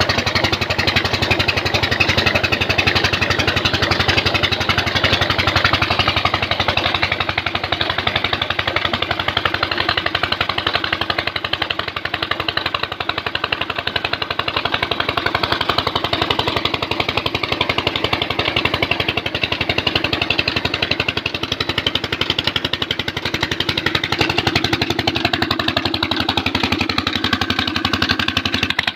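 25 hp Petter diesel engine running steadily under load, driving a tubewell water pump, with an even, fast firing beat.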